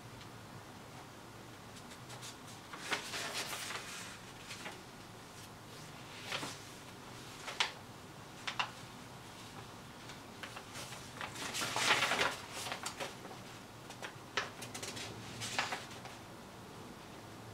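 Paper rustling as a large folded instruction sheet is handled and leafed through, in a series of short bursts with the longest and loudest cluster a little past the middle.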